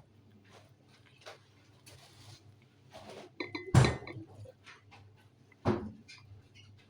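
Dishes clinking and knocking: scattered light clicks, with two louder knocks about four and six seconds in.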